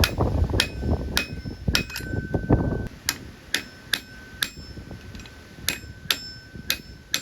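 Hammer tapping against the spanner nut on an AC compressor shaft to work it loose, steady blows about two a second, each with a short metallic ring. A low rumble sits under the first few blows.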